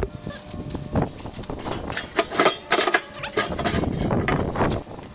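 Metal deflector plate clanking and scraping against the metal inside a Lone Star Grillz insulated vertical cabinet smoker as it is worked into its slot, a run of repeated knocks and clinks.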